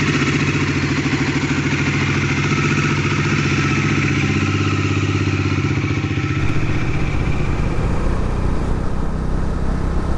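Bajaj Dominar 400 motorcycle's single-cylinder engine running steadily with a fast, even pulse. About six seconds in the sound changes abruptly to a rougher, noisier engine sound.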